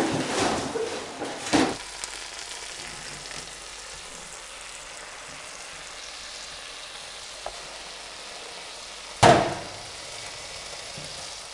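Bacon sizzling in a frying pan, a steady hiss, with one sharp knock about nine seconds in. At the very start, bumps and rustling from cardboard boxes.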